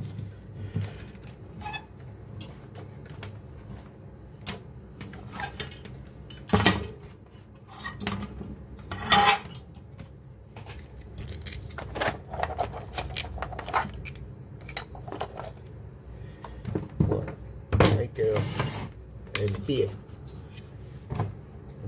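Electrical cable and small objects being handled on a wooden workbench: scattered clicks, knocks and light clinks at an uneven pace, with a few louder clusters of knocks.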